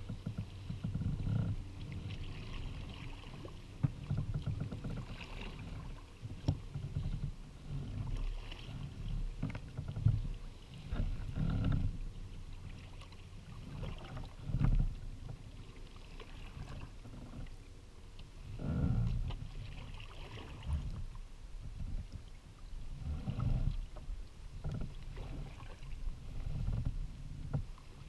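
Sea kayak being paddled on calm water: paddle blades dipping and splashing in an uneven rhythm of roughly one stroke every second or so, with water washing along the hull and a few sharp knocks.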